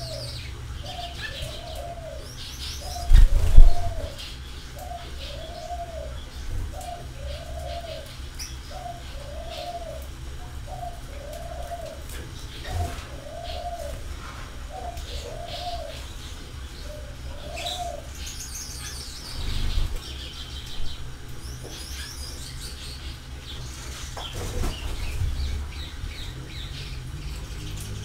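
Birds: a short low arched call repeated about once a second for the first two-thirds, over scattered high chirps. A loud low thump about three and a half seconds in, and shorter rustling bursts later.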